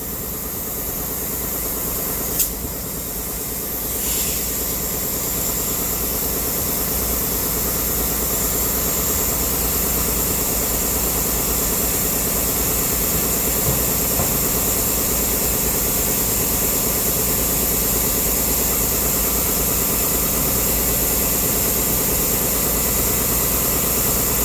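A motor or engine running steadily, with one sharp click about two and a half seconds in; the running grows slightly louder about four seconds in.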